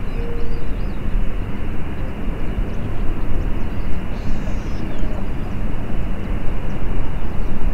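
Loud, steady outdoor rumble and rushing noise, heaviest in the low end, like distant traffic or an aircraft. A few faint bird chirps sound above it.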